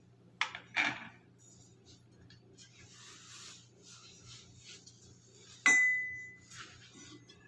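Metal pole sections of a floor-standing phone holder knocking and clinking as they are handled: two quick knocks near the start, some rustling, then one sharp clink about two thirds through that rings on as a single high tone for nearly two seconds.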